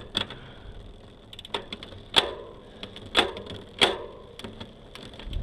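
Bicycle 1x drivetrain being shifted while the cranks turn: about five sharp clicks, spaced unevenly over a few seconds, as the rear shifter and derailleur move the chain across the cassette cogs.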